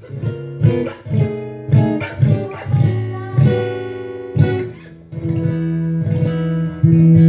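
1970s Ovation acoustic-electric guitar played through an amplifier via its piezo pickup: a run of plucked chords about half a second apart, then chords left ringing, the loudest struck near the end.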